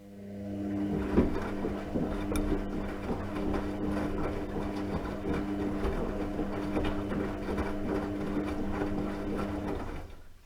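Washing machine running: a steady motor hum with a busy clicking rattle, which rises in about half a second and cuts out near the end after about ten seconds.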